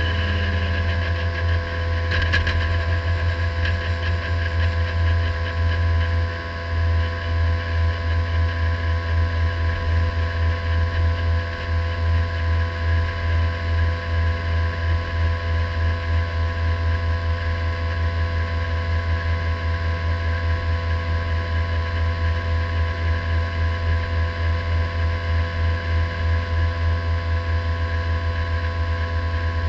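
Radical sports racing car's engine, heard from the onboard camera, running at low revs of about 3,000 to 4,000 rpm in third gear as the car rolls slowly down pit lane. From about six seconds in, the engine note pulses rhythmically, about twice a second.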